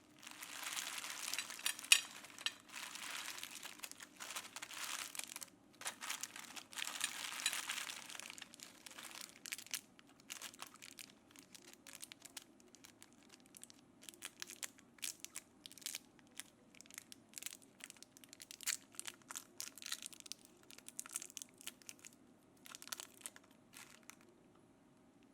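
Candy wrappers crinkling and rustling, dense for the first eight seconds or so, then giving way to scattered small clicks and crackles that die away near the end.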